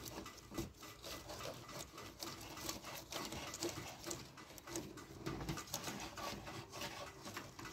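Faint, irregular clicks and ticks of hand tools and metal fittings as a car's AC refrigerant line is fitted back on and tightened.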